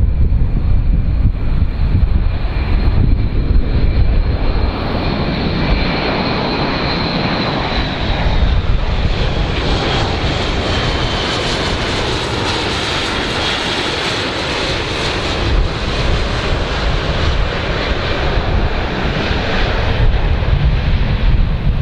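Airbus A400M's four TP400 turboprop engines, turning eight-bladed propellers, running loud as the transport aircraft passes low overhead. A high whine slides down in pitch as it goes by, and the sound swells to its fullest a little past halfway.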